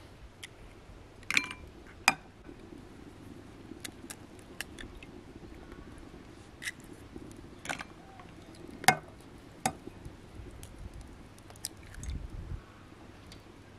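Fresh eggs being cracked on the rim of a ceramic bowl: about six sharp, separate taps of shell on glazed pottery, with a few fainter ticks of shell handling between them.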